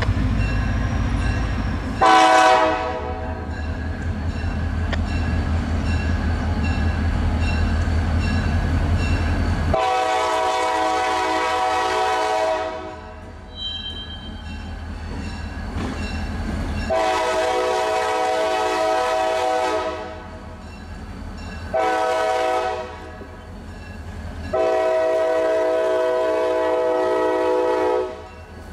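Freight train led by a GP38-2 and GP40-2 pair, its diesel horn sounding several notes at once. It gives one short blast about two seconds in, then the grade-crossing signal: long, long, short, long. A locomotive bell rings steadily and the diesel engines rumble as the locomotives draw close.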